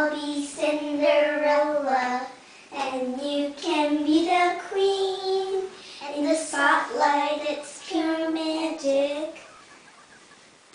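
A young child singing a song unaccompanied, in phrases with held notes and short breaks; the singing stops about three-quarters of the way through.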